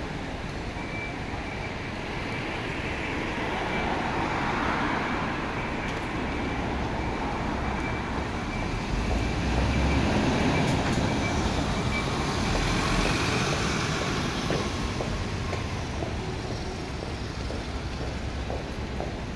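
City bus pulling away from its stop and driving past close below, its engine and tyres growing louder to a peak with a deep rumble about ten seconds in, then fading into steady street traffic.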